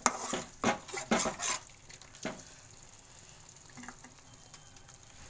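A metal spatula stirring thick curry gravy in a metal kadai, scraping and knocking against the pan several times in the first two seconds or so. After that a faint, steady sizzle of the gravy cooking on a low flame.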